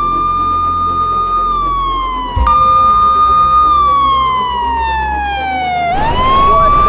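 A siren wailing: one loud tone that rises and holds, then slides slowly down. It jumps abruptly back up about two and a half seconds in, falls slowly again, and sweeps back up near the end.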